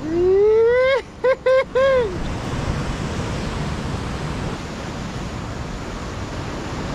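A man's whooping call that rises in pitch for about a second, then three short hoots. After that, heavy surf breaking on lava rock, a steady rushing wash.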